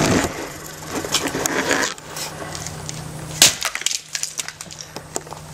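Pieces of a coffee maker being broken apart: a run of sharp cracks and snaps, the loudest about three and a half seconds in.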